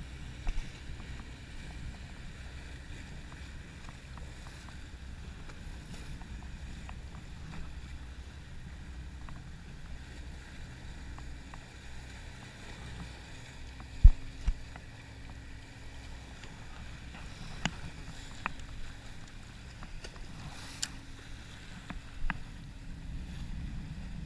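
Wind on the microphone and choppy water sloshing against a jetty wall, a steady low rumble, with scattered light clicks and one sharp knock a little past halfway.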